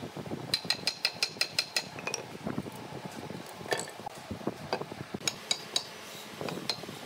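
Hammer tapping with a bright, clinking metallic ring: a quick run of about eight taps half a second in, then a few single taps later.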